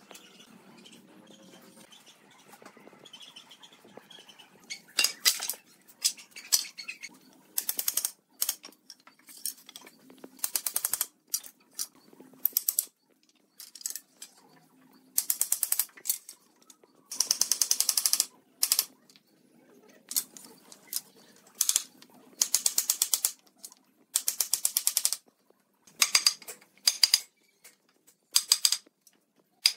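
Rapid bursts of sharp tapping, like a typewriter, from a hammer knocking pine ladder rungs and rails together. The bursts start about five seconds in and come one after another, each up to about a second long.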